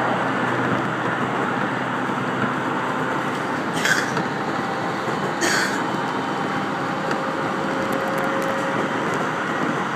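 Running noise of a JR 701 series electric local train heard inside the carriage: a steady rumble of wheels on rail with faint steady tones. Two short, brighter rushes come about a second and a half apart near the middle.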